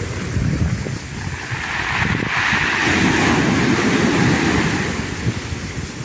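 Small sea waves breaking at the shoreline and washing up the beach in a hiss of foam, swelling about two seconds in and easing off near the end, with wind rumbling on the microphone.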